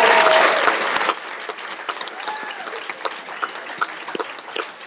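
Audience applauding, dense at first, then thinning abruptly after about a second to scattered claps.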